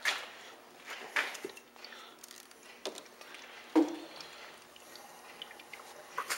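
Camera handling noise: scattered soft clicks and rustles, with one louder knock nearly four seconds in.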